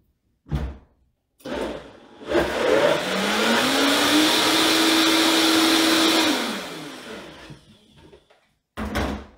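Countertop blender running for about four seconds through a thick butternut squash cream. Its motor whine rises in pitch as it spins up, holds steady, then winds down. It is re-blending to mix in added sweetener. Short knocks of the jar come before and near the end as it is set and lifted off the base.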